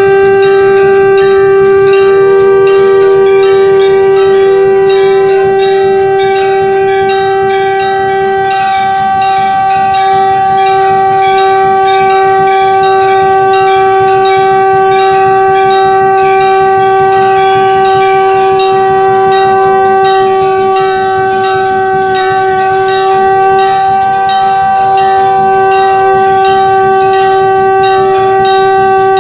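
Shankh (conch shell) blown in one long, steady held note, with temple bells struck over and over beneath it.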